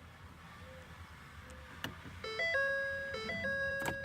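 Warning chimes from a 2012 Ford F-250's instrument cluster, a stepped electronic two-note pattern starting about halfway through, with a sharp click just before it and another near the end. The chimes keep cycling by themselves, a sign of the electrical fault that leaves the truck throwing many dash errors and refusing to start.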